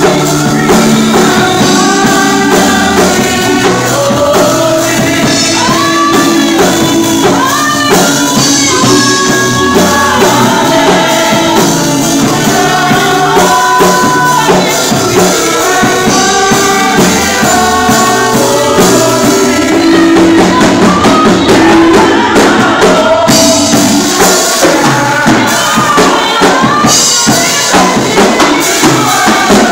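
Gospel church choir singing in full voice with instrumental backing and a tambourine shaking along.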